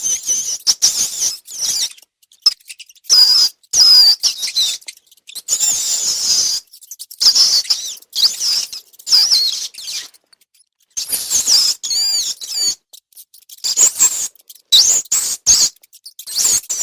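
Rats squeaking: high-pitched squeaks that slide up and down in pitch, in bursts with short pauses between them and a longer pause about two-thirds of the way through.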